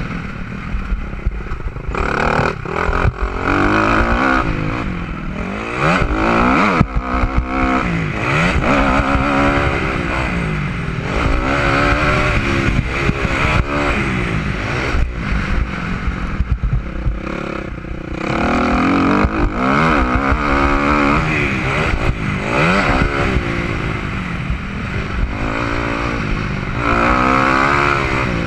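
Motocross dirt bike engine revving up and easing off again and again as it is ridden hard around a dirt track, heard from the rider's helmet camera. Occasional knocks and rattles break in over the engine.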